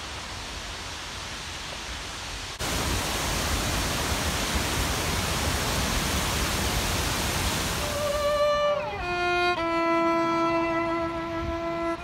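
Steady rushing roar of a waterfall, quieter at first and louder after a sudden jump about two and a half seconds in. About eight seconds in a solo violin comes in over the water, playing long held notes joined by sliding changes of pitch.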